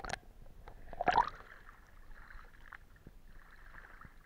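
Lake water splashing and sloshing around a camera dipping in and out of the surface, heard partly muffled from underwater: a short splash about a second in, then faint gurgling and small ticks.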